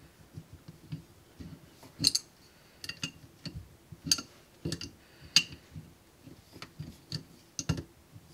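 Adjustable wrench clicking against the threaded brass fitting of a dishwasher water line as it is set on the nut and worked loose, a string of irregular, sharp metal ticks.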